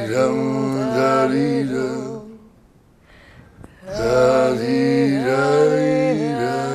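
Unaccompanied singing: slow, held notes that waver and bend in ornaments over a steady low tone. It stops for about a second and a half midway, then starts again.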